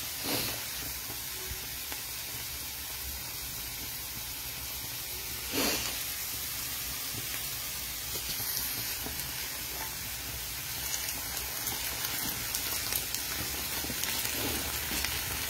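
Diced potatoes frying in oil in a skillet, a steady sizzle. A single knock comes about five and a half seconds in, and toward the end a spatula stirs the potatoes, adding small clicks and scrapes.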